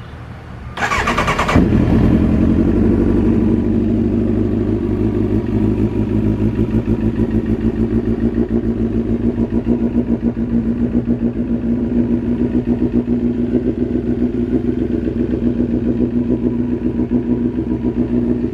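Kawasaki ZX-9R's inline-four engine starting after a brief crank about a second in, then idling steadily. It is being run to circulate freshly changed oil.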